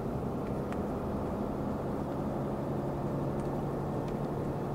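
Steady road and engine noise heard from inside a pickup truck's cab while driving at speed, with a low, even hum.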